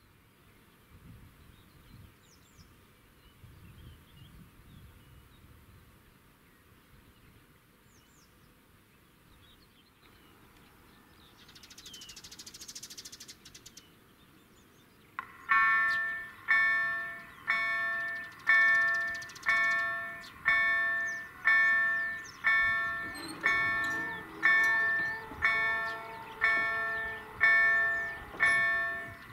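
Polish level-crossing warning bell, the EDE-1 acoustic signal driven by an EDG-2005 electronic sound generator, starts about halfway through and rings in regular, evenly spaced strikes, about four every three seconds, each dying away before the next. It marks the crossing's automatic warning cycle starting for an approaching train. Before it, faint birdsong.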